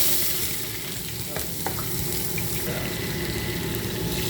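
Food sizzling in hot oil in a frying pan, a steady hiss that starts suddenly, with a couple of light clicks about a second and a half in.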